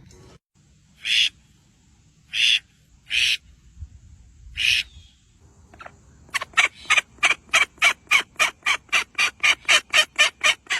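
A bird's harsh calls: four separate screeches in the first five seconds, then a fast, even run of about twenty calls at four to five a second near the end.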